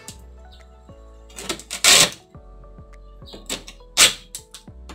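Several downward strokes of a steel hand file along the edge of a Formica laminate sheet, trimming the overhanging laminate flush with the board beneath; the strongest strokes come about two and four seconds in.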